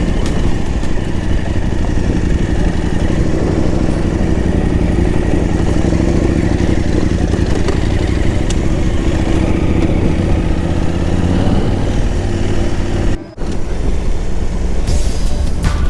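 KTM 890 Adventure R motorcycle's parallel-twin engine running steadily under way. The sound cuts out suddenly and briefly about 13 seconds in, then the engine resumes.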